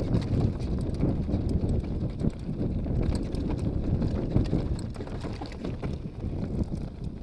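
Downhill mountain bike rolling fast over loose slate rock and gravel: steady tyre rumble with frequent rattles and knocks from the bike, and wind buffeting the microphone. The rumble eases off a little near the end as the trail turns to finer gravel.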